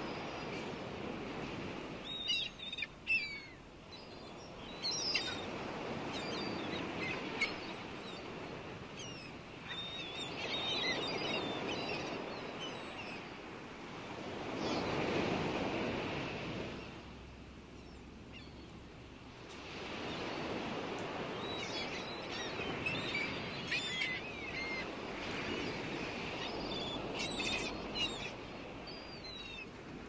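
Sea surf washing onto a beach in slow swells every few seconds, with birds chirping now and then over it.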